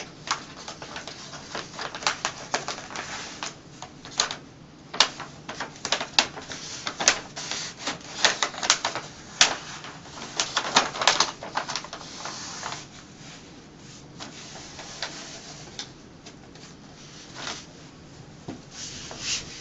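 Wax-paper backing being peeled from Phototex self-adhesive fabric wallcovering and the sheet handled, making irregular crackling and rustling. The crackles are busiest through the first two-thirds and thin out to faint handling noise later.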